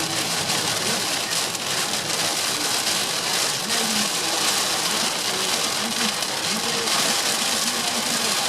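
Heavy rain hitting a moving car, heard from inside the cabin, over steady tyre and engine noise from the motorway.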